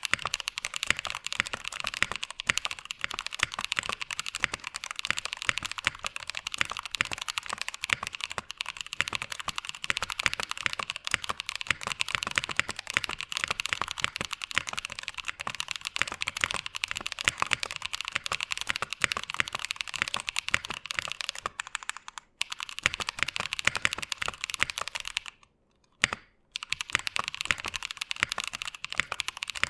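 Typing on a mechanical keyboard with lubed Drop Holy Panda tactile switches in a Tofu65 aluminum case with lubed stabilizers and no sound dampening. Keystrokes come in a quick, continuous stream, with a break of about a second near the end.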